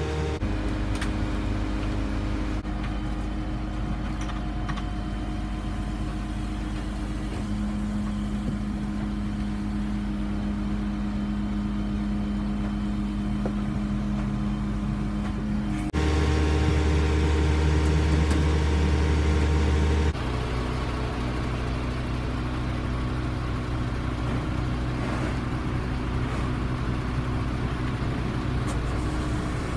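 Waste-collection truck's engine running steadily to drive its hydraulic loader crane. Its note shifts a few times and is loudest for a few seconds past the middle.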